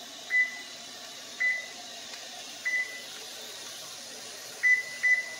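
Kitchen range's oven control panel beeping as its touch keys are pressed: five short beeps of one pitch at uneven intervals, the key-press confirmations while the oven is set to convection and turned up.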